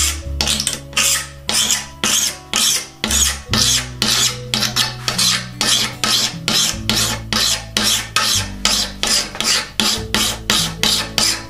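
A hand file rasping back and forth across the edge of a piece of old hand-saw steel clamped in a vise, in steady strokes of about three a second. It is flattening the ragged, torn edge left where the steel was cut.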